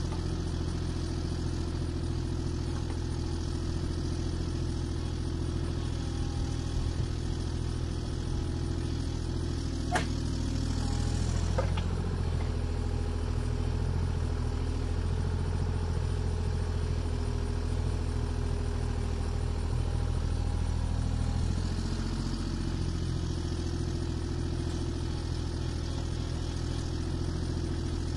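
Kubota mini excavator's diesel engine running steadily as the machine digs and swings, its note shifting slightly under hydraulic load. A single sharp clank about ten seconds in.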